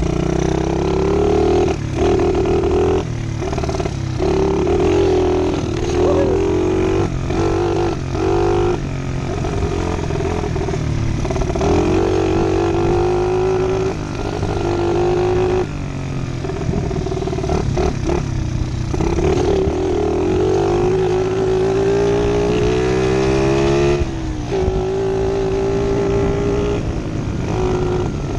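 Small pit bike engine riding under repeated bursts of throttle, its pitch climbing as it pulls and dropping in short breaks where the throttle is closed.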